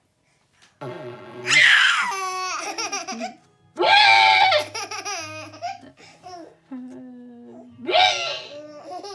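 A baby laughing in three loud peals, about a second and a half, four and eight seconds in, each falling in pitch, with quieter voice sounds between.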